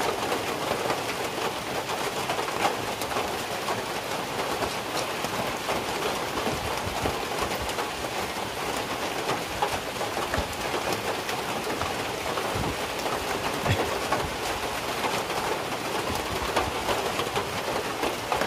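Steady rain falling on a corn field, with drops dripping off a roof edge close by as scattered sharp ticks, and a few low thumps.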